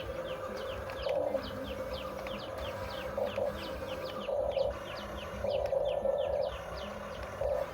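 A bird calls steadily in a rapid series of short, falling chirps, about three or four a second. Under it a small motor whirs in several short bursts of under a second each.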